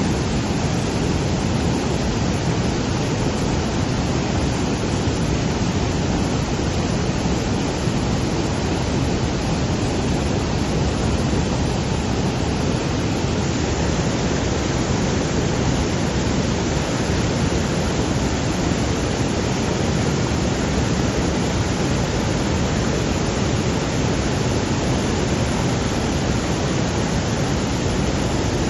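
Heavy waterfall: a steady, unbroken rush of falling water.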